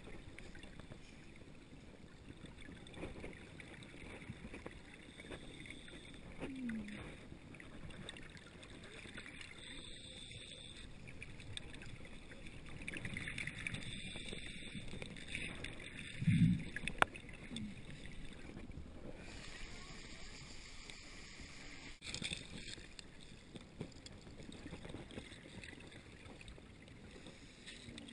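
Muffled, steady water noise picked up by a camera held just under the surface of a spring pool. A brief low bump about sixteen and a half seconds in is the loudest sound.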